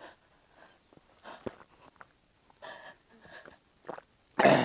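Faint breathing and mouth sounds as a man drinks from a gourd, then a sudden loud, short vocal burst near the end.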